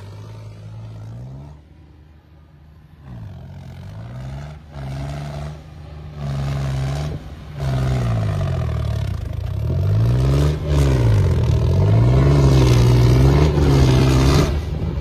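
John Deere diesel tractor engine revved hard, its pitch rising and falling again and again as the tractor spins and slides in loose sand. It is fainter at first and grows loud from about halfway on.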